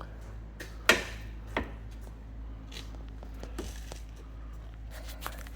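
A sharp knock about a second in and a lighter one just after, then a few faint clicks, over a steady low hum.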